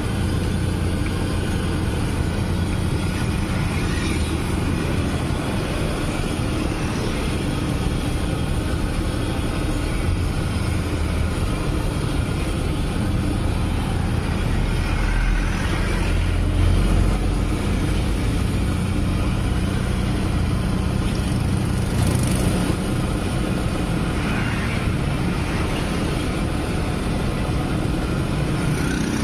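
A large wok of hot oil deep-frying stuffed tofu, bubbling and sizzling steadily, over a steady low rumble like street traffic.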